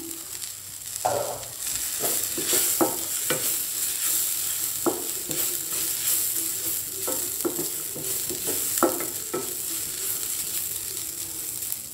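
Wooden spatula stir-frying cluster beans with freshly added grated coconut in a stainless steel kadai: repeated scrapes and knocks against the pan over a steady sizzle.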